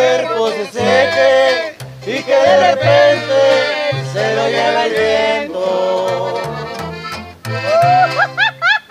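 Norteño trio playing an instrumental passage: button accordion carrying the melody over a strummed twelve-string guitar and plucked upright bass notes. Near the end a run of short, high, rising-and-falling yelping calls cuts in over the music.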